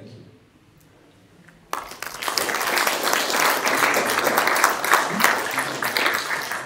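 A small audience applauding, breaking out suddenly just under two seconds in and holding at full strength, many hands clapping at once.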